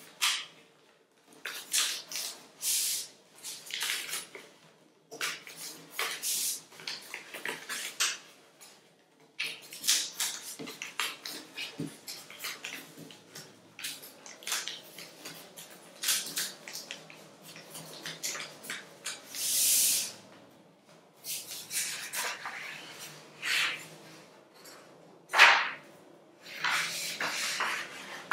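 Sheets of origami paper being folded and creased by hand, rustling and crinkling in many short bursts with brief pauses between, one louder crackle near the end.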